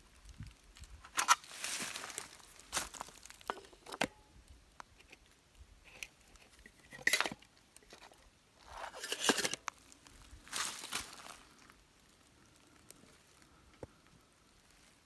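Dry fallen leaves rustling and crunching, with handling noise, in several short bursts that die away in the last few seconds.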